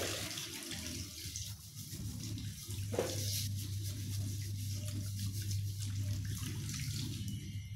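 Tap water running into a stainless steel sink as dishes are rinsed under the stream, with two short knocks of crockery, one right at the start and one about three seconds in. A steady low hum runs underneath.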